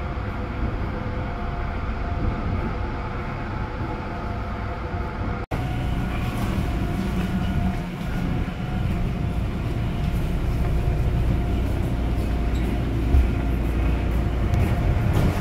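Electric subway train running on the rails, heard from inside the passenger car: a steady low rumble with a faint running whine. The audio cuts out for an instant about a third of the way through, and there is a single low thump near the end.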